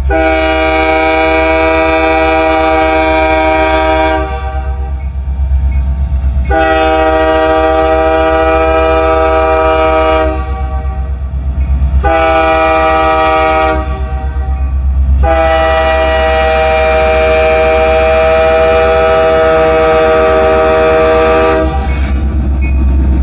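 Union Pacific SD70M diesel locomotive's multi-chime air horn sounding the grade-crossing signal: two long blasts, a short one, then a longer final blast, over the steady low rumble of the diesel engine. Wheels start clattering over the crossing near the end.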